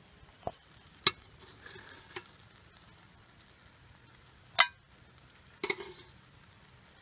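Metal tongs clinking against the grill grate and snapping shut while handling grilled banana halves: a scattered series of sharp clicks, the loudest about four and a half seconds in.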